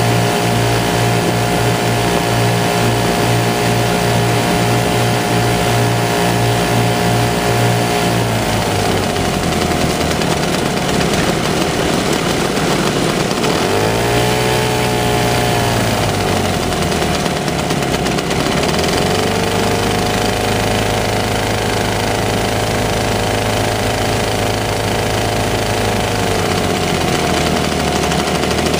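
The Lazair ultralight's twin 9.5 hp Rotax two-stroke engines running at taxi power on the grass. They run steadily at first, are throttled back about eight seconds in, are briefly revved up and down near the middle, then run on at a lower, steady speed.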